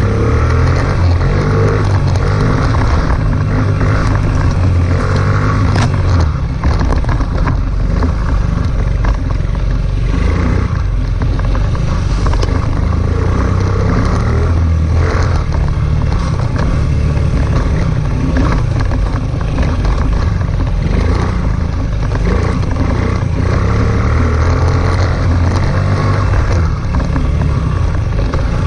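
Honda CRF dirt bike engine, heard close from the bike itself, revving up and down through the ride, with frequent knocks and rattles over the rough track.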